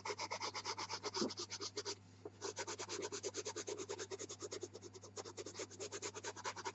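Pastel pencil rubbing on velour pastel paper in rapid short back-and-forth strokes, with a brief pause about two seconds in.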